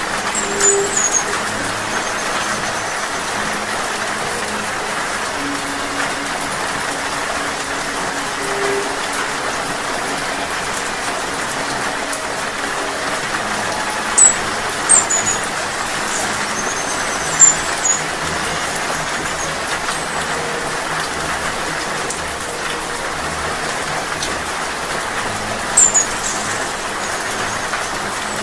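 Steady rain, with a few short, high, thin chirps from a hummingbird, apparently a green-backed firecrown: once just after the start, three times in the middle and once near the end.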